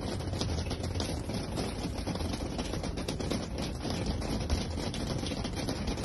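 Steady outdoor background noise: a low rumble with a fainter hiss above it, with no distinct events.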